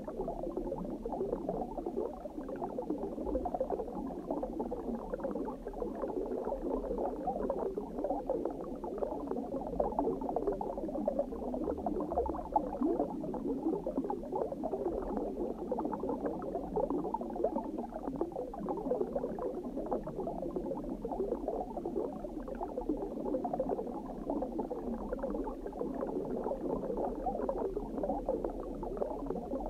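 Continuous underwater ambience: a steady, muffled bubbling and gurgling of water.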